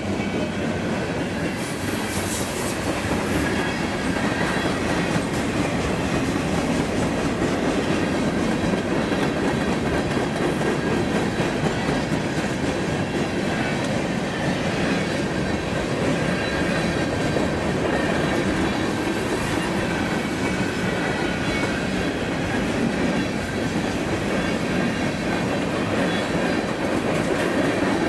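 A mixed freight train's cars rolling past close by: a steady rumble and clatter of steel wheels on the rails.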